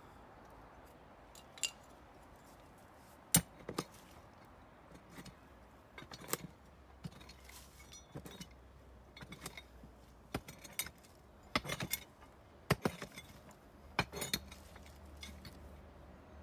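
Metal digging tool striking and chopping into compacted soil and rubble: about fifteen sharp clinks and knocks at uneven intervals, the loudest a little over three seconds in.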